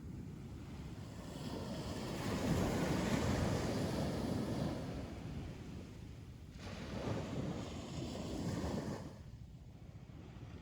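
Ocean surf breaking on a beach: one large wave swells in a rushing wash about two seconds in and fades over a few seconds, then a smaller wave washes in about halfway through and dies away near the end.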